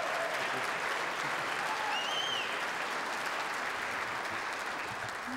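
Audience applauding after a barbershop quartet's song, with a short whistle from the crowd about two seconds in.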